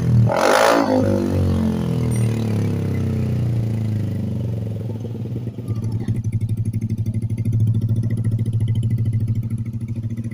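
Yamaha Aerox V2 scooter's single-cylinder engine running through an Akrapovič exhaust with the silencer insert fitted. A throttle blip comes right at the start, the revs fall back over a few seconds, and then it idles with a fast, even exhaust pulse.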